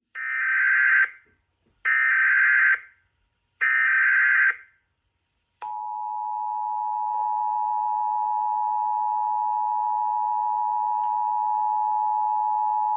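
Emergency Alert System header tones: three short bursts of screeching data tone, each about a second long, followed about five and a half seconds in by the steady two-tone attention signal, which marks the start of an emergency broadcast.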